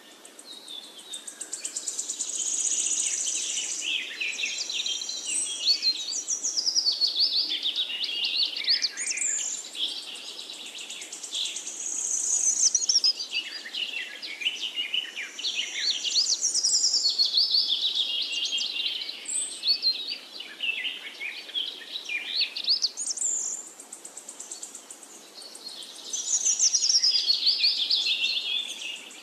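Forest songbirds singing: long, varied phrases of rapid high chirps and trills, with a few short lulls between phrases.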